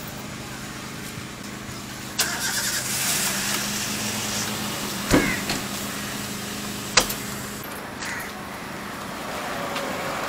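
Metal serving hatch of a food truck swung down and shut with one heavy thump about halfway through, after a couple of seconds of rattling, then a sharp metal click of a latch and smaller knocks as the panels are fastened. A vehicle engine hums steadily underneath.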